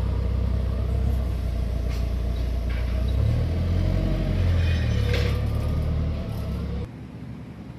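Forklift engine running with a steady low rumble, which drops away abruptly near the end.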